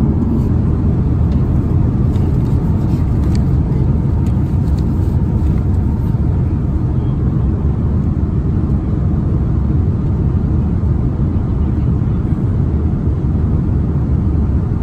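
Steady low rumble and rush of an Airbus A330-300's passenger cabin, engine and airflow noise holding an even level.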